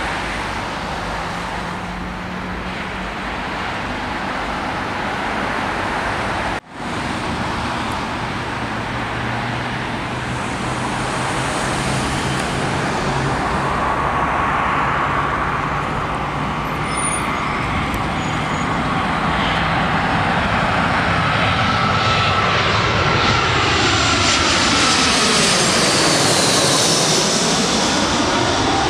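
Jet airliner on approach: engine noise that builds over the last several seconds as a twin-engine British Airways narrow-body passes low overhead, with a whining tone and a whooshing, phasing sweep as it goes by. The sound cuts out briefly about six and a half seconds in.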